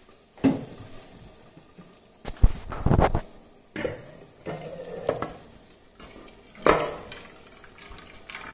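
Metal cooking pot and lid knocking and clattering several times while water pours off cooked rice into a metal bowl as the rice is drained.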